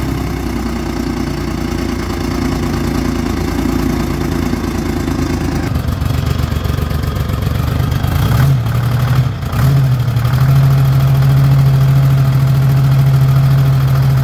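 Old Dynahoe 160 backhoe's engine running at a steady idle, a low 'purr'. It dips briefly about eight to nine seconds in, then settles into a stronger, steady note.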